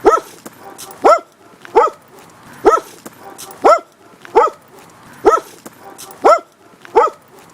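Dog barking: a steady string of about nine short barks, roughly one a second, each rising and falling in pitch.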